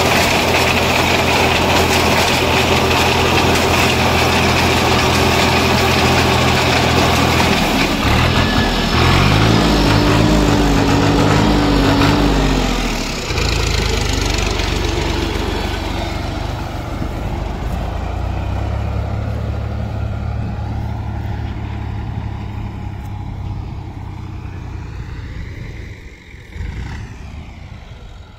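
Tractor diesel engine running with a front-mounted reaper binder cutting wheat, a steady mechanical hum. It is loud for about the first half, then grows fainter as the tractor moves away.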